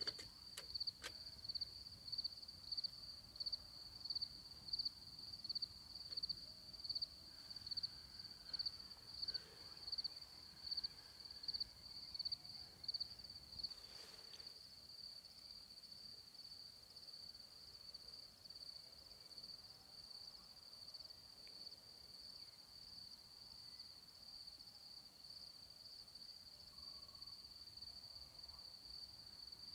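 Crickets chirping: a steady high-pitched trill, with a loud pulsing chirp about three times every two seconds for roughly the first half, after which the trill goes on evenly and softer.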